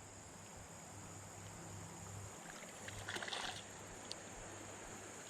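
Faint creek ambience: a steady high hiss over a low hum, with a short splashy rustle about three seconds in.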